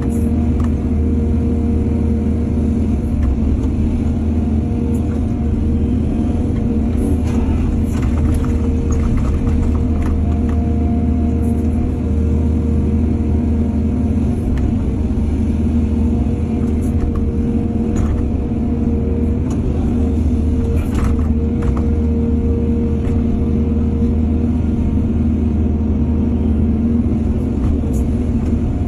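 Excavator's diesel engine running steadily under load, with scattered clanks and knocks.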